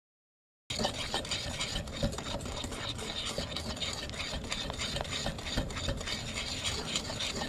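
Wire balloon whisk beating a thick egg-yolk and sugar sabayon in a bowl: a continuous quick scraping and clicking of the wires against the bowl, starting after a moment of silence about half a second in. The sabayon is being whisked off the heat to cool.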